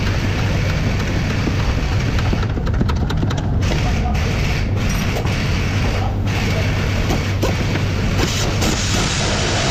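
Hand ratchet working a front-suspension bolt, its clicks over a steady loud workshop hum.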